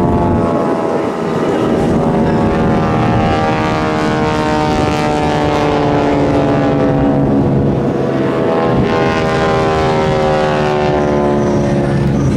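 Several propeller airplanes flying over in formation, their engines droning loudly together. The pitch slowly sags as they pass.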